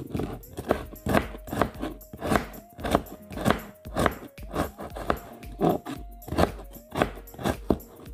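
A kitchen knife cutting through broccoli florets and stems, one cut about every half second.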